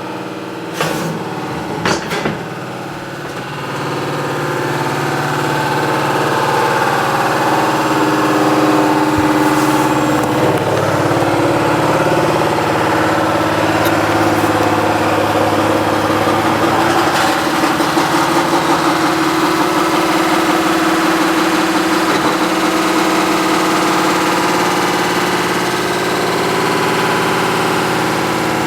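Washing machine running on its spin cycle with a heavy mechanical rumble and vibration that sounds like a diesel engine, the sign of a broken bearing. A few knocks in the first couple of seconds, then it gets louder as it speeds up over several seconds and holds steady.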